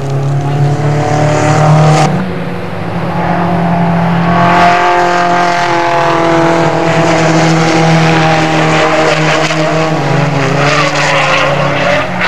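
Racing car engines running hard on a circuit: a steady engine note throughout, with more engines joining from about four seconds in as cars pass. The sound changes abruptly about two seconds in.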